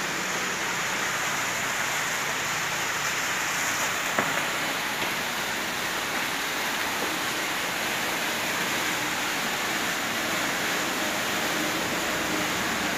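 Steady, even hiss of room noise, with one light click about four seconds in.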